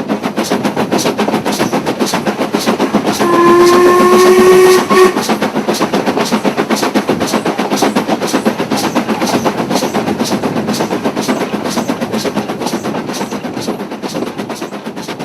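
Stanier 'Black 5' steam locomotive working hard, its exhaust beating in a rapid, even rhythm. A steam whistle sounds once, about three seconds in, for a second and a half and is the loudest thing heard; the beats fade slightly near the end.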